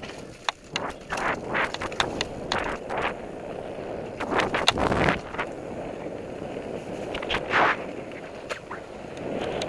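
Mountain bike rolling fast down a dirt forest trail: tyre noise on the dirt with frequent sharp rattles and knocks from the bike over bumps, and brief gusts of wind on the microphone.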